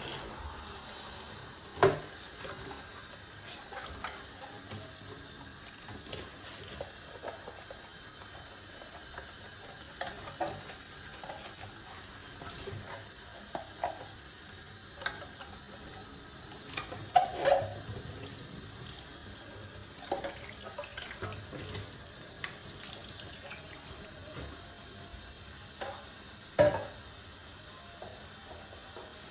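Tap water running into a kitchen sink, with occasional knocks and clinks of things being handled, the loudest a few times through.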